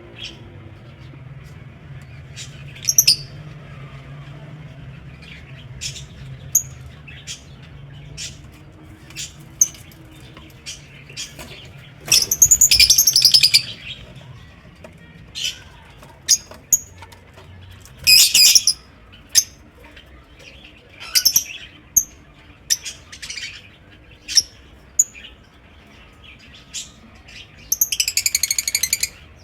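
Lovebirds chirping, with sharp high chirps scattered throughout and three longer bouts of rapid, loud chattering.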